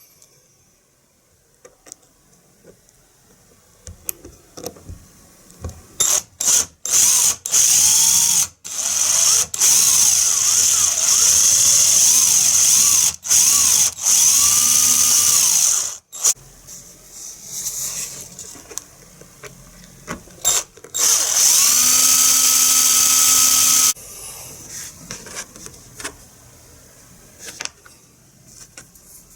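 A small power tool running in bursts: several short starts, then two long runs, its pitch dipping and rising as it works.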